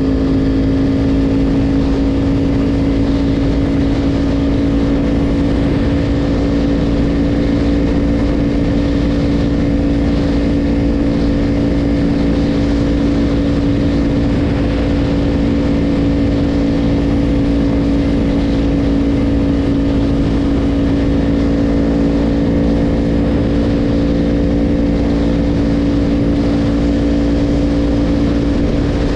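Yamaha YZF-R1 inline-four sport-bike engine running at a steady cruise, holding one even pitch with no shifts or revving, over a constant low rush of wind and road.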